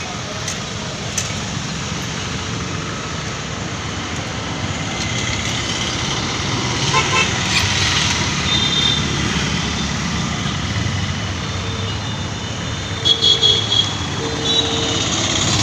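Busy street traffic of motorbikes, scooters and cars running past with steady road noise, and vehicle horns sounding several times: a longer honk about halfway through, then a run of short quick toots near the end.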